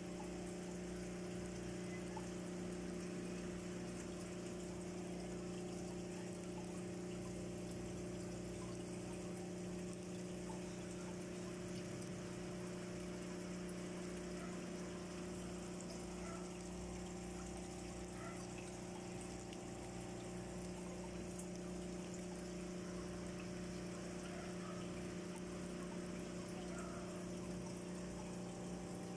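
Aquarium pump running: a steady hum with water trickling and pouring in the tank.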